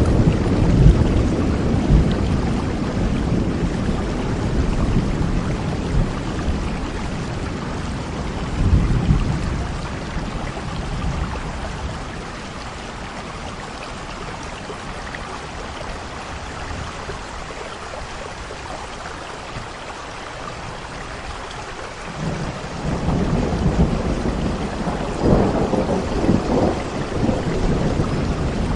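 Steady heavy rain with rolling thunder: the rumbling dies down through the middle and builds again near the end.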